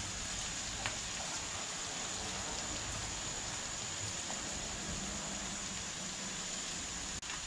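Onion, pepper and tomato frying in oil in a pan: a steady sizzle.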